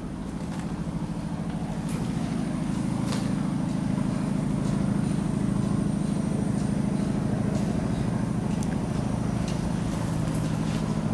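An engine running steadily with a low, fast-pulsing hum that grows louder over the first few seconds and then holds, with a few faint clicks.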